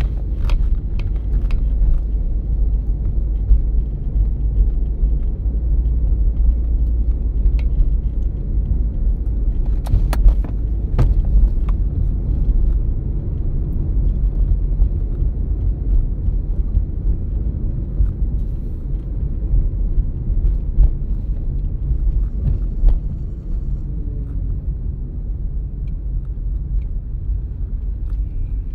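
Car driving along a town street, heard from inside the cabin: a steady low rumble of engine and road noise, with a couple of sharp knocks about ten seconds in.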